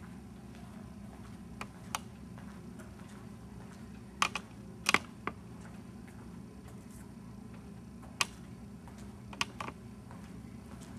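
An irregular scatter of short, sharp clicks, loudest in a cluster about four to five seconds in, over a steady low hum.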